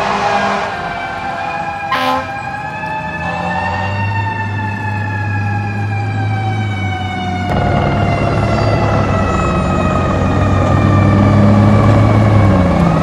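Fire engine siren wailing: its pitch slides slowly down over several seconds and starts to climb again near the end, over a low steady hum. A short sharp click comes about two seconds in.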